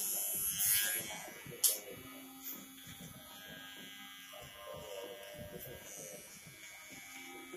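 Cordless electric hair trimmer buzzing as it edges the hairline around the ear. A loud hiss in the first second and a sharp click a little later stand out above it.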